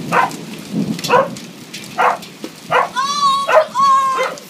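Small dog barking repeatedly, about one sharp bark a second, with two longer drawn-out cries near the end. Rain is falling underneath.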